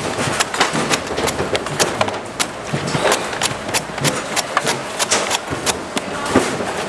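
Sharp, uneven knife chops into coconuts, about three knocks a second.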